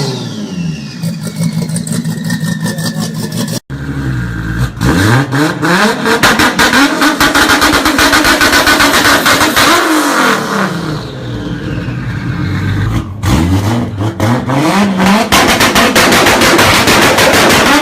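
Toyota Supra engine revving loudly, its pitch climbing and falling several times as it accelerates, with a brief dropout about four seconds in.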